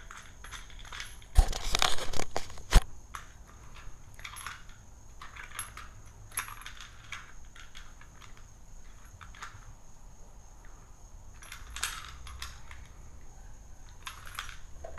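Small metal hardware clinking and rattling as the bolt, washers and nuts of a lawn dethatcher's wheel axle are handled and taken apart. There is a cluster of louder metal knocks and clatter about one and a half to three seconds in, then scattered light clicks.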